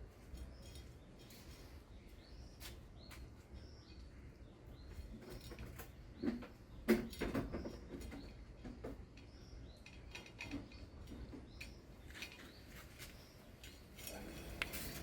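Faint, scattered small clicks and taps, a few stronger ones about six to seven seconds in, with short high chirps every second or so.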